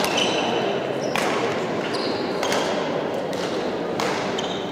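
Badminton rally in a large, echoing hall: sharp racket hits on the shuttlecock about once a second, with short shoe squeaks on the court floor after several of them.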